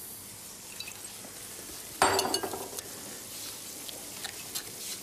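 Food sizzling steadily in a frying pan on the stove, with one sudden louder knock about two seconds in.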